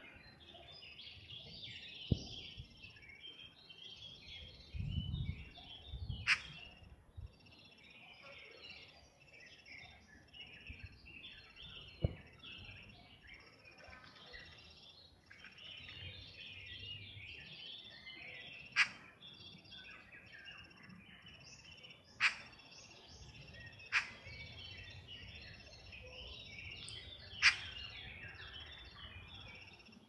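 Birds chirping and singing without a break, with a sharp short click about seven times, louder than the birdsong, and a brief low rumble about five seconds in.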